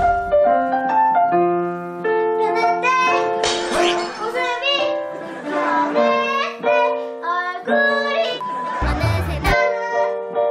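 A young girl singing a pop song into a studio microphone over instrumental backing, holding long notes; her pitch is mocked in the captions as 'not of this world'.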